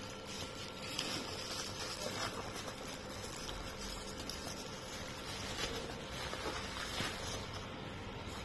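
Light handling noises from a product box being handled: a few scattered soft taps and rustles over a steady background hiss.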